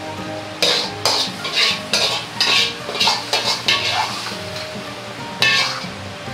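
Steel wok ladle scraping and knocking against the inside of a Chinese wok as the finished stir-fry is scraped out onto a plate. It comes as a quick run of scrapes about twice a second, pauses for about a second past the middle, then starts again near the end. Quiet background music plays underneath.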